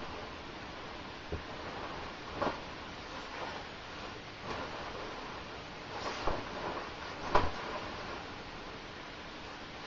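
Nylon shell of a down sleeping bag rustling in several short bursts as a person shifts and turns inside it on a bed, over a faint steady hiss; the loudest burst, about seven seconds in, carries a soft thump.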